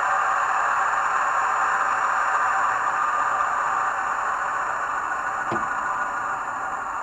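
Sound-fitted OO gauge model Class 47 locomotive running on the layout, its sound decoder playing the diesel engine sound steadily and gradually getting quieter. A single sharp click comes about five and a half seconds in.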